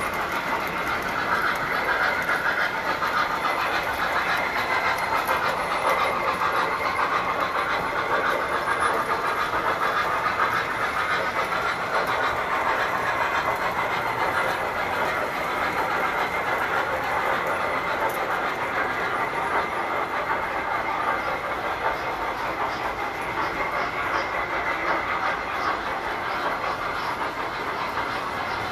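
Tinplate model trains running on metal three-rail track, a steady continuous rumbling whir of motors and wheels.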